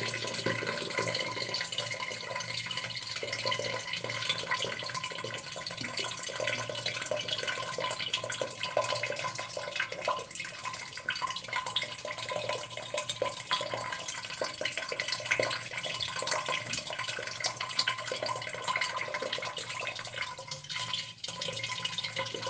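Water trickling and splashing into a hollow vessel, a steady flow broken by many small drips and plops, with a faint ringing from the hollow.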